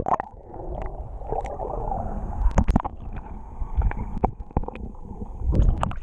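Muffled underwater sound picked up by a submerged GoPro action camera in its waterproof housing: a dull low rumble and sloshing of shallow surf water, with a few sharp clicks and knocks.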